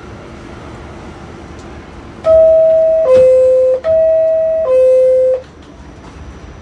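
R46 subway car's door-closing chime: a loud two-note descending ding-dong, sounded twice in a row, warning that the doors are about to close.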